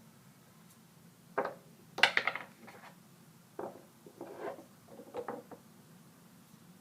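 Small glass nail polish bottles and their brushes being handled: a series of light clicks and taps in a few short clusters, the loudest about two seconds in.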